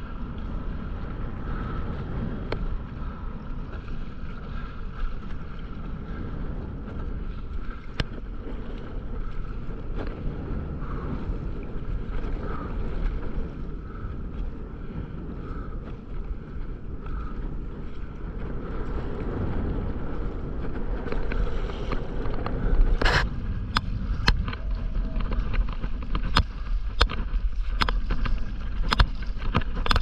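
Wind buffeting and water rushing against a camera riding low on a stand-up paddleboard at sea. From a little past the middle, a string of sharp knocks and splashes as the paddle strokes the water beside the board.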